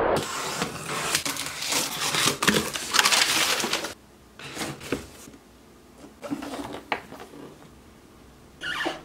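Loud crunching, crackling noise for about four seconds, then softer scattered rustling and knocking of a cardboard box being handled and opened, with a brief louder rustle near the end.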